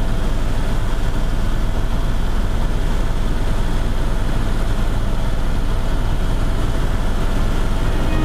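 Steady helicopter engine and rotor noise heard from inside the cabin, an even, unchanging rush with most of its weight low down.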